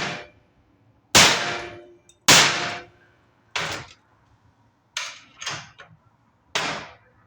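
Hammer blows on metal: about seven sharp, ringing strikes roughly a second apart, three coming quicker together near the end, typical of hammer-crimping a lug onto a heavy battery cable.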